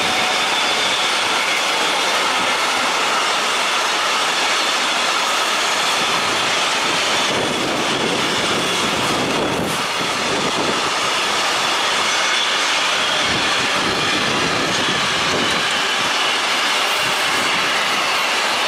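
Intermodal freight train of wagons carrying lorry trailers rolling past, a steady loud rush of wheels on rail with thin high wheel squeal running through it.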